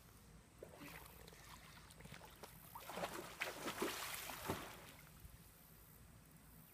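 Faint pool water splashing as a swimmer dives down and kicks at the surface. The splashing starts about half a second in, is loudest between three and four and a half seconds in, and dies away after about five seconds.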